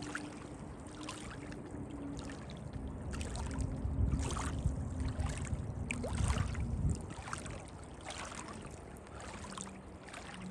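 Small waves lapping and splashing irregularly against shoreline rocks, with the faint steady hum of a distant small boat's engine. A low rumble swells for a few seconds in the middle.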